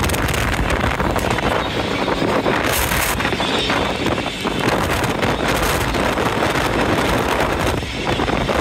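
Dense, steady din of crackling and popping New Year fireworks, with wind buffeting the microphone.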